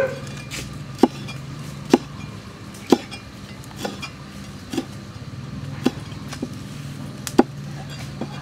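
Heavy knife chopping red chilies on a thick wooden chopping block: sharp knocks about once a second, with a few lighter taps between.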